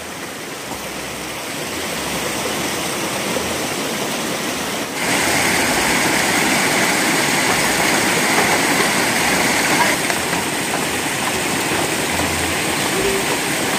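Shallow rocky stream rushing over stones and a small cascade, a steady rush of water that gets louder about five seconds in.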